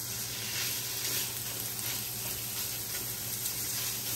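Minced pork and garlic sizzling in oil in a frying pan as the pork cooks through: a steady, even hiss.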